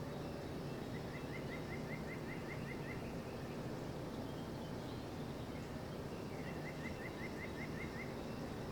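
A songbird sings two short phrases of quick, repeated rising notes, about a second in and again near the end. Under it runs a steady low background rumble.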